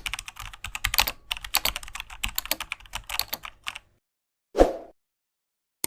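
Rapid, irregular keyboard-typing clicks for nearly four seconds, then a short whoosh.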